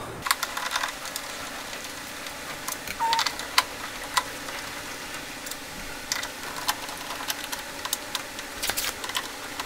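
Light, scattered clicks and scrapes of a hand screwdriver backing out the Honda Del Sol's door latch screws, with a small cluster about three seconds in and another near the end, over a steady faint hum.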